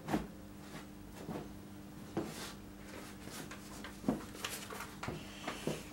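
Light handling noises: scattered small clicks and taps, with rustling from a sheet of paper being picked up in the second half, over a faint steady hum.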